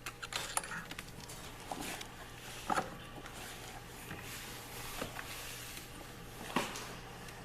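Scattered light clicks and knocks from an axle nut being turned with a small tube wrench while the other end is held with a screwdriver, fastening a rear wheel on a ride-on toy truck, over a faint steady low hum.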